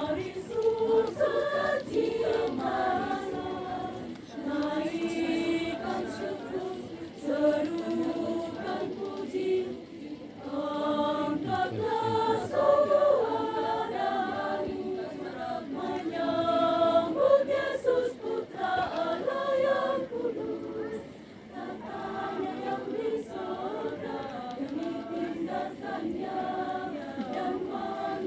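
Women's church choir singing together in sustained phrases a few seconds long, with short breaks between phrases.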